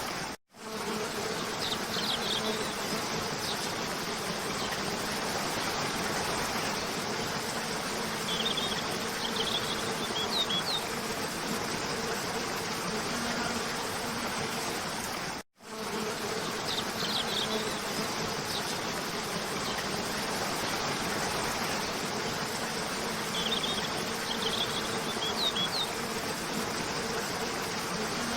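Cascade waterfall rushing steadily, with short clusters of high bird chirps and a steady low buzz underneath. The track cuts out to silence for a moment twice, about half a second in and about halfway through, and the same chirps come back in the same order after each cut, as a repeating loop.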